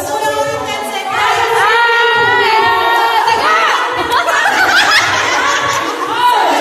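A group of women's voices singing and calling out together, with long, high voices sliding up and down in pitch, over a crowd's chatter.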